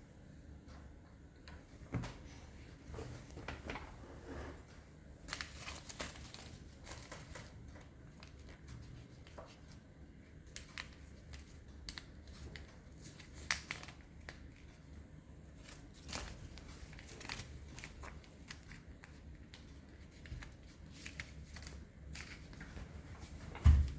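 Paper being folded and creased by hand: scattered crinkles and rustles of the sheet, with a low thump near the end.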